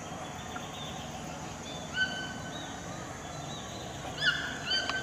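Distant chorus of howler monkeys roaring, heard as a steady low, rough drone. A bird gives short clear whistled notes over it about two seconds in and twice near the end.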